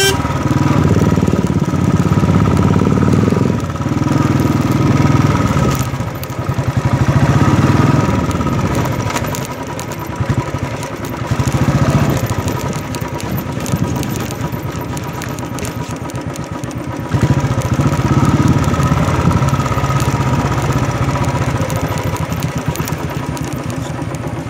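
Motorcycle engine running while riding over a rough dirt trail, its note swelling and easing with the throttle, and quieter toward the end as the bike slows.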